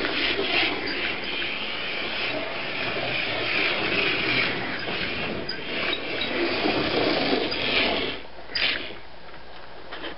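Vintage Revell 1/32 midget racer slot car running on a plastic slot track: its Strombecker electric motor whirs steadily, with the wheels and pickup braids rubbing along the slot. A sharp click comes near the end, after which it runs quieter.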